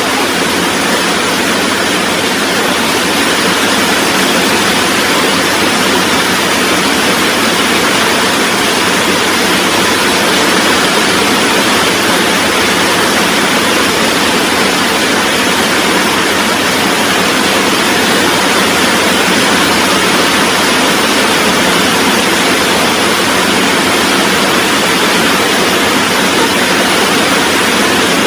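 Rain falling steadily, an even dense hiss with no single drops or pauses standing out.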